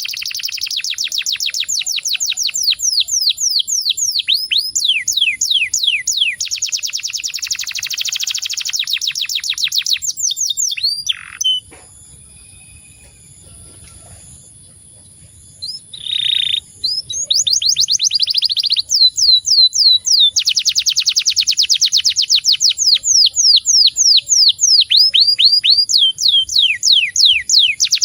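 Domestic canary singing loudly in long, fast rolls: trills of rapidly repeated falling notes. It breaks off for about four seconds around the middle, then resumes.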